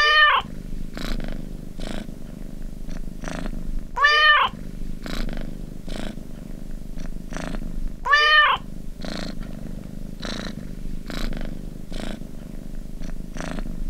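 A cat meows three times, about four seconds apart, each meow rising then falling in pitch, with steady purring in between. It is the cat meow-and-purr alarm that sounds when the countdown timer ends.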